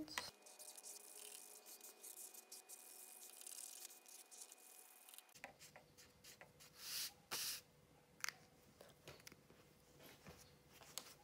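Faint scratching of a felt-tip marker colouring on paper, with a few soft knocks of paper being handled about seven seconds in.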